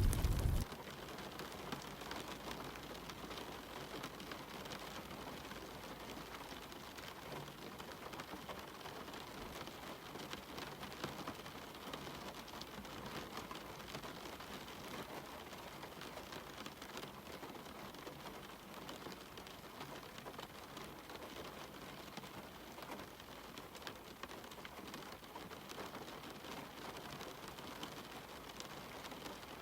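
Steady rain falling, an even hiss dotted with a fine patter of drops. A louder low rumble stops about half a second in.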